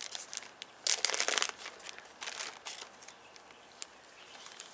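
A clear plastic zip-top bag crinkling and rustling as it is picked up and handled, loudest about a second in, with a few shorter rustles after.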